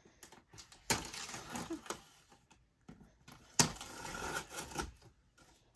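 Box cutter slicing through the packing tape along the top seam of a cardboard shipping box: two cuts of about a second each, the first about a second in and the second a little past the middle, with lighter scratching of blade and cardboard between.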